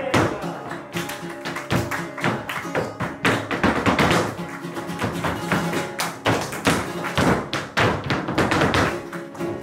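Flamenco zapateado: a dancer's shoes striking the stage in rapid, irregular heel-and-toe stamps, over a flamenco guitar playing along.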